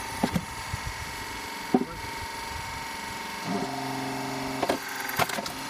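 Homemade hydraulic log splitter running with a steady hum, with sharp cracks and knocks of wood splitting and split pieces being handled, four times. For about a second past the middle a deeper, steady drone joins in.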